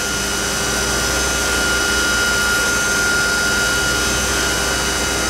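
4-axis CNC machining centre drilling the oil hole into the top side of a Rover V8 cylinder head: a steady high spindle whine over a hiss of coolant spray.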